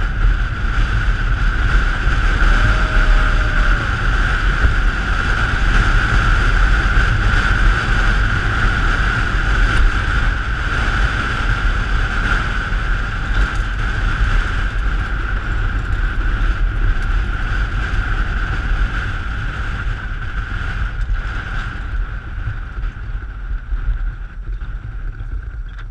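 Ice boat sailing over ice: its runners give a steady hiss, under heavy wind rumble on the microphone, easing slightly toward the end.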